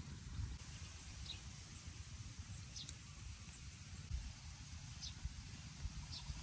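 Outdoor rural ambience: wind buffeting the microphone in an uneven low rumble, with a few short high chirps scattered through and one sharp click about three seconds in.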